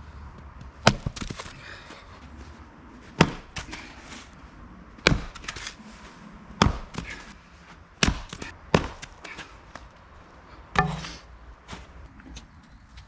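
Firewood being split by hand: about seven sharp chopping strikes at uneven intervals of one to two seconds.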